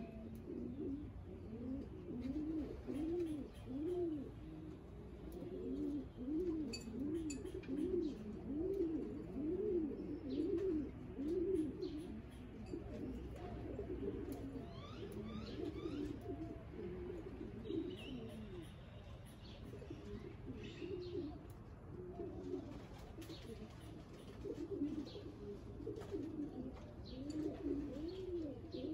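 Domestic pigeons cooing in a loft, many overlapping coos repeating one after another. A few short high chirps from another bird come in about halfway through.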